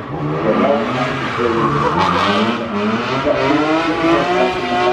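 Car engine revving hard during a smoky burnout, its pitch rising and falling again and again as the throttle is worked while the rear tyres spin on the tarmac.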